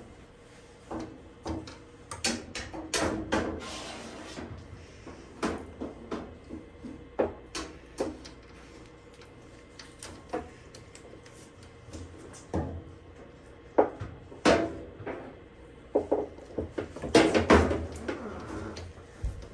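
Irregular knocks and clicks of parts being handled while a suspension rod is fitted into a Samsung washer, with a cluster of louder knocks near the end.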